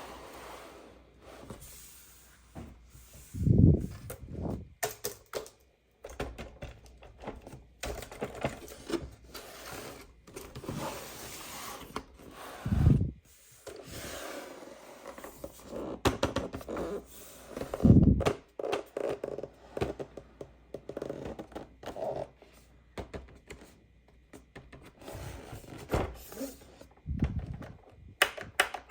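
Toy packaging being handled and opened by hand: irregular scraping, rustling and clicking, with four heavy thumps spread through.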